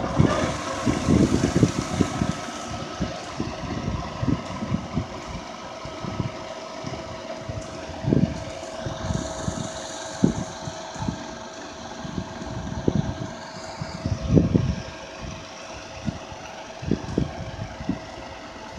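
Tractor engine running under load, driving the beaters of a rear-discharge spreader that throws chopped silage onto a pile: a steady mechanical whine over irregular low rumbling, with a hiss that grows stronger about halfway through.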